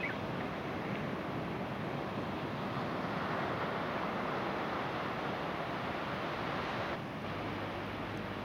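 Ocean surf breaking and washing in, a steady rushing noise with wind on the microphone; the sound shifts abruptly about seven seconds in.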